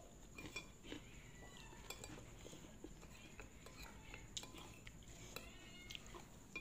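Metal fork and spoon clinking and scraping against a ceramic plate in light, scattered taps, about one or two a second, with soft chewing sounds in between.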